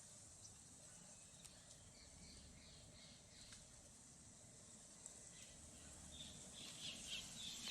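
Faint outdoor ambience: small birds chirping softly over a steady high hiss, the chirps coming more often near the end.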